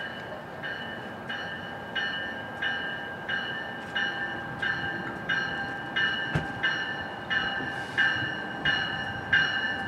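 Warning bell of an approaching NJ Transit commuter train ringing steadily, about one and a half strikes a second, growing louder as the train nears, over the train's low rumble. A single sharp knock comes about six and a half seconds in.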